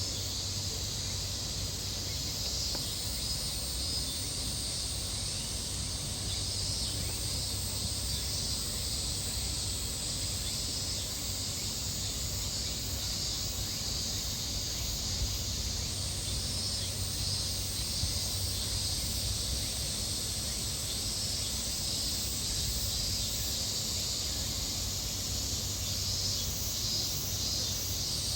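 Cicadas singing in a steady, high-pitched chorus, with a low steady hum underneath.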